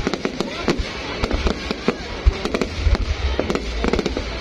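Fireworks going off in quick succession: a dense run of bangs and crackles over a low rumble.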